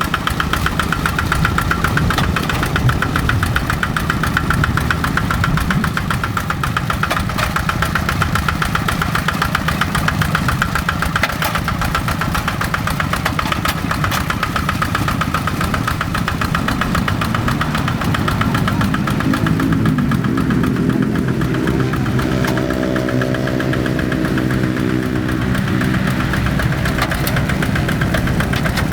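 Kubota RD85 DI-2S single-cylinder diesel of a hand tractor running steadily with a rapid, even knocking beat. About twenty seconds in, a steadier hum with several tones joins the running.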